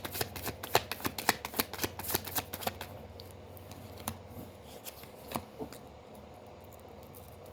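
A deck of reading cards being shuffled by hand: a quick run of card flicks for about three seconds, then a few scattered taps as the cards settle.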